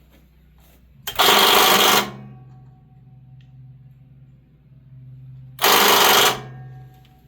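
Starter solenoid on a Generac-built 15 kW Centurion standby generator chattering in two loud bursts of just under a second each as the start is tried, while the V-twin engine does not turn over. The owner suspects the battery lacks the amperage, or that the engine is locked up.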